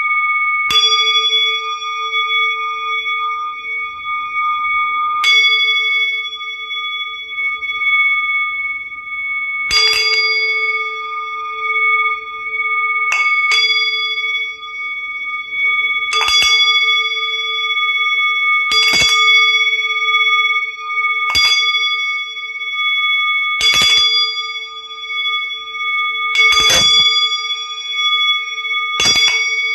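A hand-held brass bell-type instrument struck about ten times, one stroke every two to three seconds, each stroke ringing on in several steady tones that overlap with the next.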